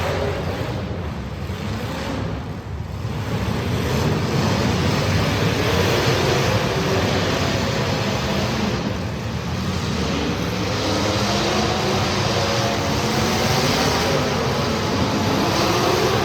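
Street stock race cars' engines running hard together on track, several pitches wavering up and down at once.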